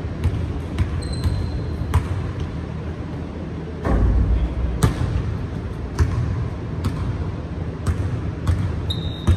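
Basketball bouncing on a hardwood gym floor during one-on-one play, with sharp bounces roughly once a second at an uneven pace. There is a short high sneaker squeak about a second in and another near the end.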